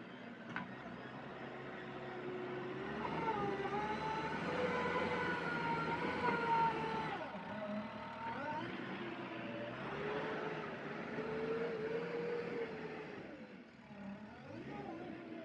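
Engines of heavy machinery, a backhoe loader and tractors, running and revving up and down, their pitch rising and falling. The sound changes abruptly about seven seconds in.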